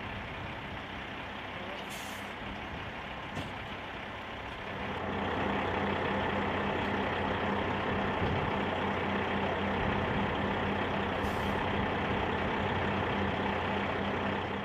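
Diesel engine of a large military tactical truck running steadily, growing louder and fuller about five seconds in, with three brief hisses.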